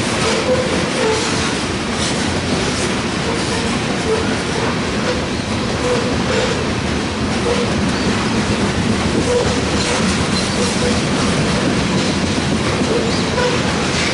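Loaded grain hopper cars of a freight train rolling past, wheels clicking steadily over the rail joints, with brief faint squeals from the wheels here and there.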